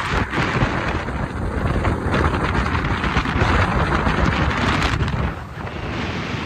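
Strong wind buffeting the phone's microphone while riding along an open road: a loud, rough rush with a deep rumble, easing briefly about five seconds in.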